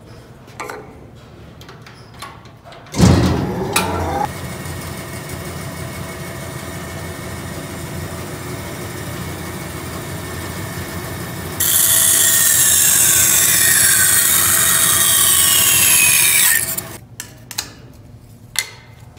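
Bandsaw starting up about three seconds in and running steadily. Then, for about five seconds, it is louder and hissing as the blade cuts lengthwise through a short piece of inch-and-a-half ABS plastic pipe. The sound drops away sharply, and a few light clicks follow.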